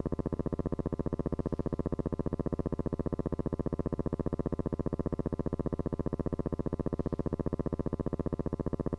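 A steady buzzing tone that pulses evenly about ten times a second, with no change in pitch or level.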